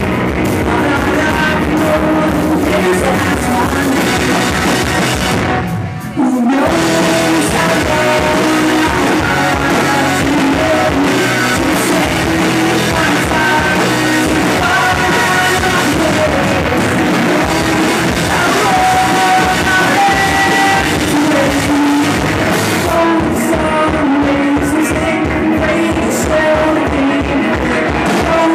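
A rock band playing live, electric guitars and drums with a lead vocal sung over them. The band briefly drops away about six seconds in, then comes back in full.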